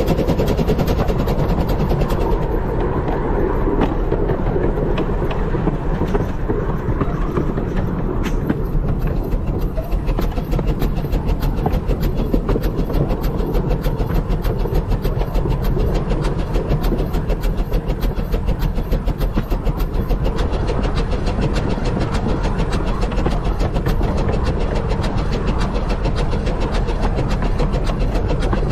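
15-inch gauge steam locomotive River Mite running steadily along the line, its wheels clattering over the rails in an even rhythm.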